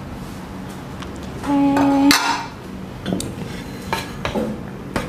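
Aluminium pot lid and metal spoon clattering: about a second and a half in a short held ringing tone ends in a sharp clank, and after it several light knocks and scrapes of a spoon against the aluminium pot of kimchi stew.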